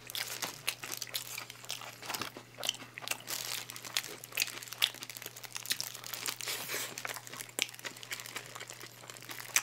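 Close-miked chewing of a burger, with the paper wrapper crinkling in the hands: a steady run of small crackles and wet clicks.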